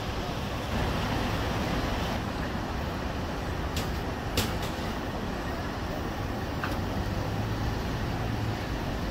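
Steady road and tyre noise of a car cruising on an expressway, heard from inside the car. A few sharp clicks break in, the loudest about four and a half seconds in.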